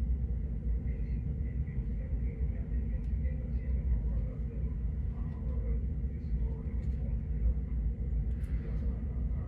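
Steady low rumble of room ventilation running, with a faint hum, and a few faint light ticks from hands handling hair.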